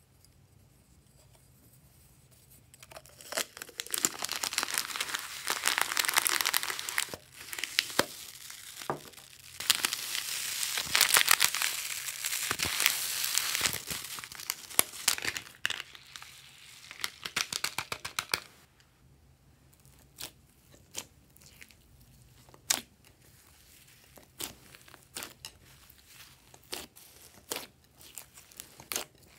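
Thin plastic crinkling and rustling for about fifteen seconds from about three seconds in, as a zip-lock bag of foam beads is handled and opened. After that come scattered sharp clicks and pops of glossy slime being squeezed by hand.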